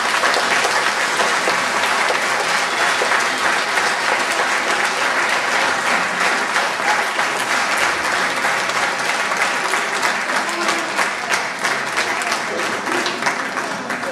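Audience applauding: many hands clapping in a dense, steady patter that thins slightly near the end.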